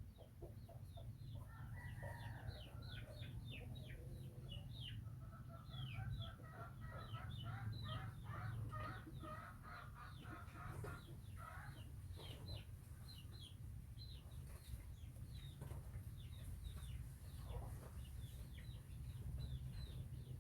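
A long series of short, high animal calls that fall in pitch, with a run of rapid pulsed calls between about two and twelve seconds in, over a low steady hum.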